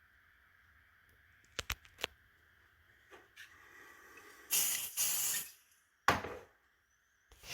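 A few sharp clicks, then short hissing bursts of air, two about four and a half and five seconds in and a louder puff near six seconds: smoke being sent into a smoke detector's chamber to trip it.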